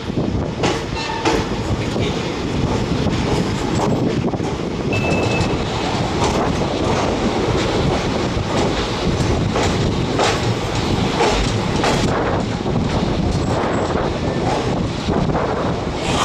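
Train running on the rails: a steady, loud rumble of the wagons with a scatter of sharp clicks as the wheels pass over the rail joints.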